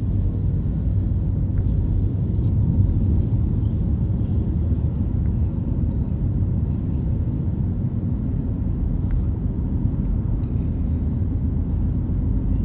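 Steady low rumble of tyre and engine noise inside a moving car's cabin.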